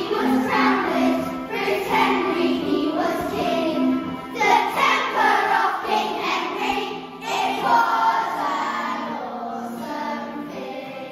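A class of young children singing a song together in unison over a musical accompaniment with steady held notes.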